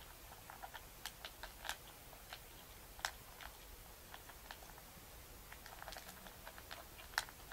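A cat eating from a stainless steel bowl: irregular sharp clicks and crunches as it chews and its food knocks against the metal.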